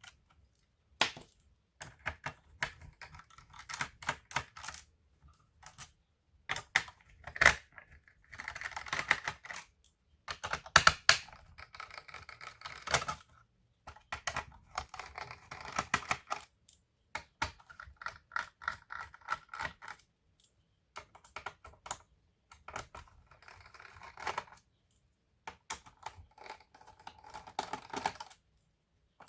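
Irregular clicks, taps and scraping of small tools and plastic and metal parts as an Asus A42F laptop is worked on by hand during disassembly, with short pauses between bursts of handling.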